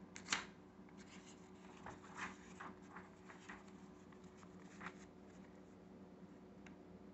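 Faint paper handling as a stapled instruction manual's cover is opened and the page turned: a sharp tick at the start, then a few seconds of soft rustling and brushing strokes on the paper, and one small tick near the end.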